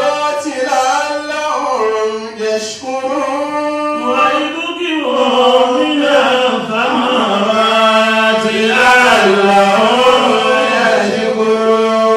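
A man chanting solo without accompaniment, in long held, ornamented notes that slide between pitches.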